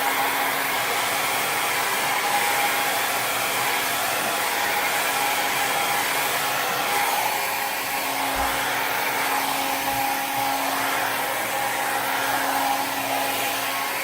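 Handheld hair dryer running steadily, a loud rush of air with a faint steady hum under it, blowing thinned acrylic paint across a canvas.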